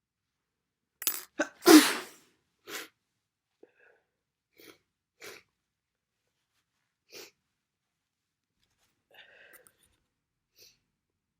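A person with a bad cold sneezing hard once, about a second in, then sniffling several times in short quiet sniffs over the following seconds.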